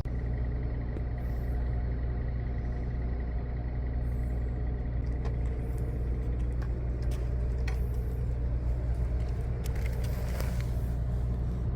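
A steady, low engine drone running evenly, with a few faint clicks and knocks over it.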